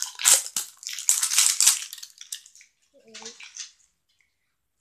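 Foil wrapping on a slime tub crinkling and tearing as it is pulled open: a rapid run of sharp crackles that stops about two seconds in.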